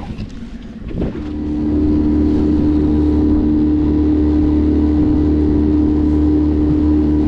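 Outboard motor of a lake boat under way, picking up about a second in and then running steadily at one pitch.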